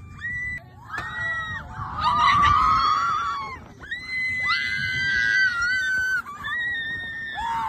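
Several roller coaster riders screaming: long, high, held screams from a few voices at once, coming in waves with short breaks between, over a low rumble.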